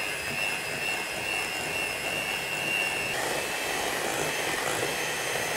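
Handheld electric mixer whining steadily as its beaters whip chilled crème pâtissière in a glass bowl until smooth. Its pitch drops a little about three seconds in.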